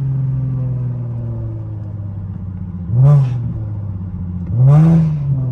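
Infiniti G37's 3.7-litre VQ V6 running with a loud exhaust, its note freshly tuned up with new coils after an exhaust leak repair. It revs briefly twice, about three seconds in and again near the end, the pitch rising and falling each time.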